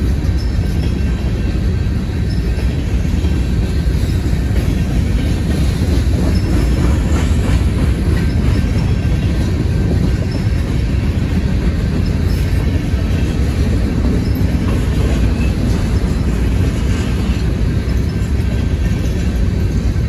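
Freight cars, mostly covered hoppers, rolling past on the rails: a steady, loud rumble of wheels over the track.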